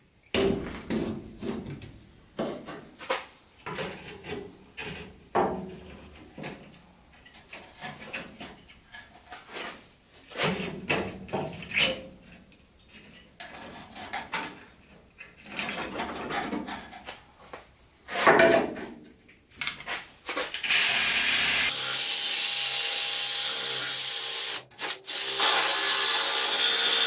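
Irregular rustling, clicks and clunks as old wiring is pulled loose from a rusty steel vehicle frame. About 21 seconds in, a DeWalt cordless drill with a wire cup brush starts scouring rust off the frame rail, a loud steady scraping over the drill's motor hum, with one brief break.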